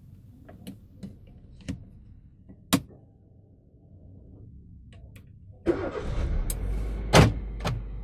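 Sharp clicks of toggle switches on a custom ignition panel, then about two-thirds of the way through the Hyundai i10's 1.2 Kappa four-cylinder petrol engine starts suddenly and keeps running with a steady low rumble.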